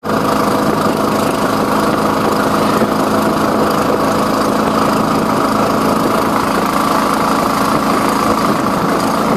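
Bus diesel engine running steadily while the bus drives along, heard from inside near the open door, over a steady hiss of road and wind noise.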